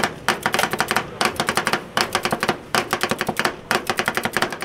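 Knife chopping rapidly on a cutting board, in quick runs of sharp strokes several a second with short pauses between runs.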